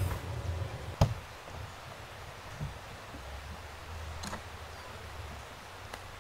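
One sharp click about a second in, then quiet outdoor stillness with a few faint ticks.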